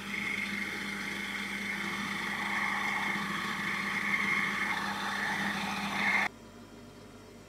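Mini mill running with an end mill cutting a hole into an aluminium plate: a steady motor tone under the sound of the cut. It stops suddenly about six seconds in.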